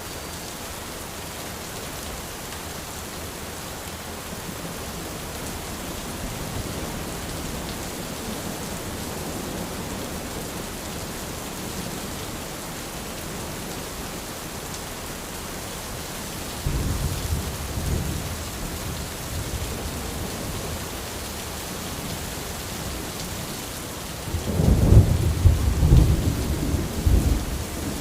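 Steady rain falling on an umbrella, with thunder: a low rumble starts suddenly a little past halfway, and a louder rolling clap comes near the end.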